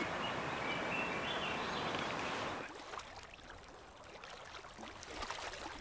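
Lakeshore ambience: a steady rushing hiss with a few short, high bird chirps. About two and a half seconds in it drops to the quieter lapping of small lake waves over pebbles, with faint clicks.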